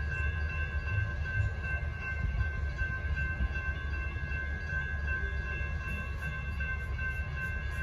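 Railroad grade-crossing warning bells ringing steadily, several bells overlapping, over a steady low rumble.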